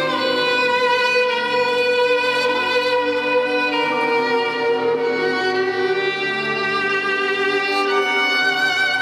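Recorded program music for a figure skating free skate, played over the rink's loudspeakers: a violin-led string piece in a slow melody of long held notes with vibrato.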